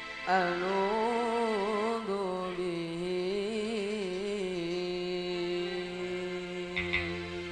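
A male voice singing a long, ornamented sholawat line in a chant-like style over steady held accompaniment tones, settling into a held note for the last few seconds. A single short hit sounds near the end.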